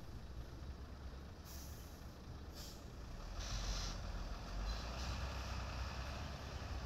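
Heavily loaded Hino dump truck's diesel engine running low as it approaches, with three short air-brake hisses in the first half.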